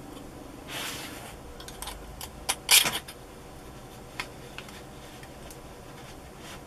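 Small metal and plastic parts of an AK47 BB gun's front end (fake gas tube and handguard) being handled and fitted together: a brief sliding rustle, then a few clicks with one sharp clack just under three seconds in, and a few light ticks after.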